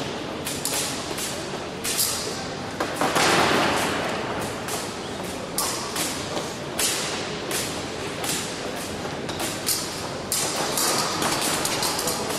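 Fencing-hall ambience: irregular sharp knocks and clacks over a steady background of distant voices, with a louder rush of noise about three seconds in.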